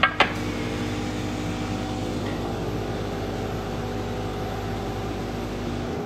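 Two sharp plastic clacks in quick succession right at the start, as a polycarbonate chocolate mould is handled on the counter, over a steady mechanical hum with several held tones. The lowest rumble of the hum drops out near the end.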